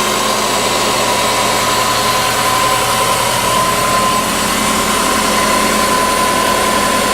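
Subaru engine idling with a steady high-pitched howl from the timing belt drive, appearing after a timing belt change. The howl holds a single pitch that drifts very slightly lower, over the engine's even idle. The owner suspects the belt tensioner, an idler bearing or pulley, or the new belt's material.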